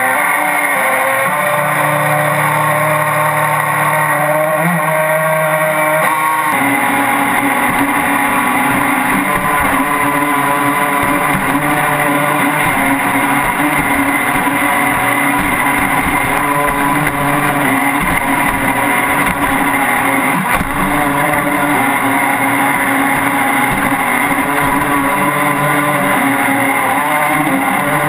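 RC speed boat's motor running steadily at close range, heard from a camera mounted on the boat's deck, with water noise under it. The sound changes abruptly about six seconds in, becoming rougher and busier.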